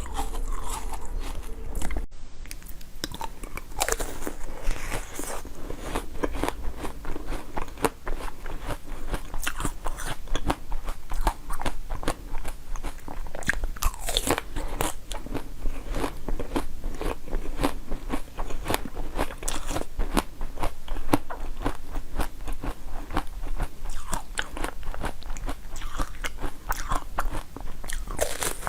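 Close-miked crunching and chewing of crisp food: dense, irregular crackling bites throughout, with a brief break about two seconds in.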